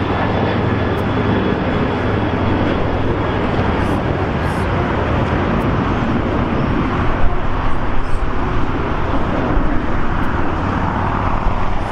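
Boeing 737-800 jet engines at takeoff thrust, a loud steady roar as the airliner climbs out. A faint high whine fades within the first few seconds, and the roar turns rougher and crackling from about seven seconds in.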